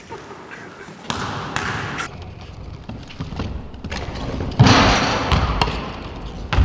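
Basketball bouncing on a wooden gym floor: a string of irregular thuds, the loudest about four and a half seconds in.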